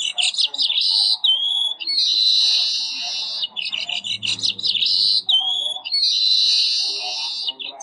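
A recorded bird call played loudly through a talking pen's small speaker: four long bursts of harsh, high trilling chatter, with a short whistled note between some of them.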